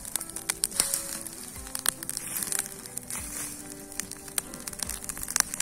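Branch-and-board bonfire crackling, with many sharp irregular pops and snaps, over background music with held notes.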